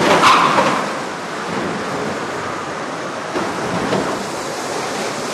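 Indoor arena crowd noise: a loud swell of crowd reaction in the first second, then a steady rushing din.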